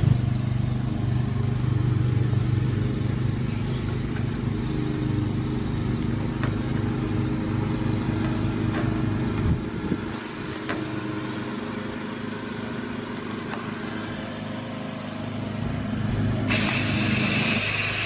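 Steady low machine hum made of several steady tones, its deepest part dropping away about ten seconds in. About sixteen seconds in, a loud hiss starts: a hose-end foam sprayer spraying cleaner into the air conditioner's outdoor unit.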